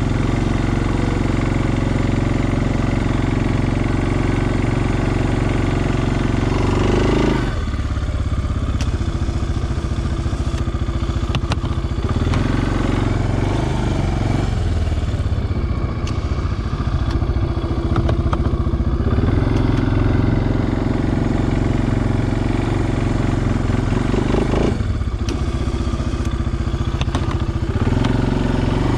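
Suzuki King Quad 400 ATV's single-cylinder four-stroke engine running under load while pushing snow with a front plow blade. Its note drops and picks up again a few times as the throttle changes, about a quarter of the way in, near the middle and again near the end.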